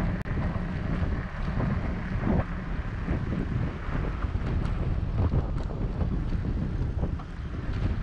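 Wind buffeting the microphone of a camera on a moving bicycle: a low, unsteady rush with no distinct events.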